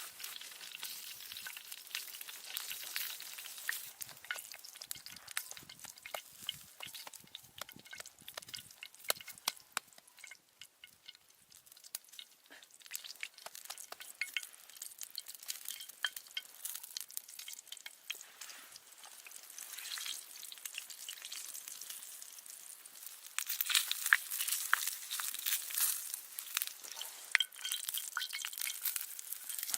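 Food sizzling and crackling as it fries in a pan, with a dense patter of small pops that grows louder about three-quarters of the way through.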